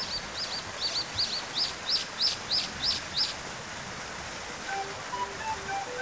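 Brown-eared bulbul calling: a quick series of about a dozen short, high, sharp notes, about four a second, growing louder and stopping a little over three seconds in.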